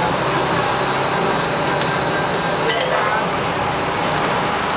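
Light clinks of glasses, cups and utensils being handled as drinks are made, with a sharper clink about three seconds in, over steady street noise and background voices.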